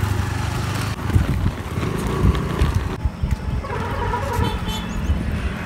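Inline skate wheels rolling over paving, with wind rumbling and buffeting on the microphone and road traffic around.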